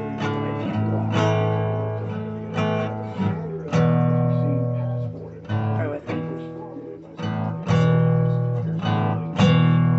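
Acoustic guitar strummed in slow chords, each strum ringing out and fading before the next, the chord changing every second or two.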